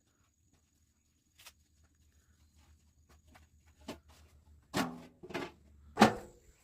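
Scattered light clicks and knocks, then three louder thumps close together near the end, the last the loudest.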